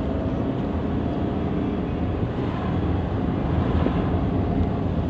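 Steady road and engine noise inside a moving car's cabin, a constant low rumble with no sudden sounds.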